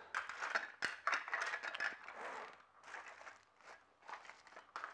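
Irregular clicks and scrapes of hard plastic being handled: a GoPro Hero 4 waterproof housing having its back door swapped for the fully waterproof deep-dive door.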